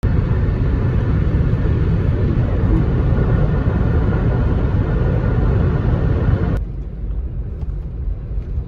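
Vehicle driving on a snowy road: a steady, loud road and driving noise that drops off suddenly about six and a half seconds in to a quieter low rumble of tyres and engine.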